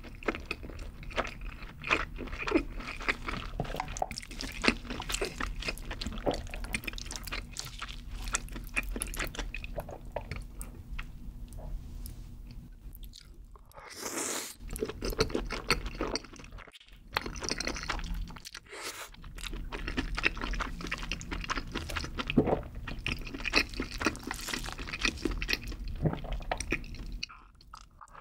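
Close-miked chewing with wet, sticky mouth sounds. About halfway through comes a brief slurp as wide flat pasta noodles in creamy carbonara sauce are sucked in, and then the chewing goes on.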